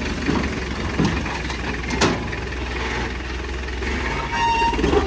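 A 2.2-litre turbo-diesel engine from a 1983 Ford Ranger running at low speed with a steady low rumble and diesel knock, as its picnic-table vehicle rolls down a trailer ramp. A few sharp knocks stand out, the loudest about two seconds in.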